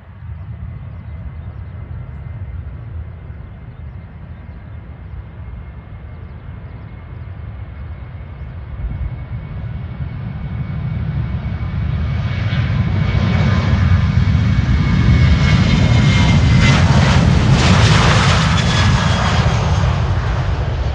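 Airliner's engines passing at a runway. A steady whine over a low rumble grows much louder from about nine seconds in to a loud, noisy peak, then eases slightly near the end.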